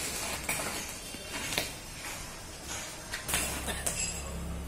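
Electric arc from an ARC 200 PRO stick welder cutting steel: a steady hissing crackle broken by irregular sharp pops. A low hum comes in about three seconds in.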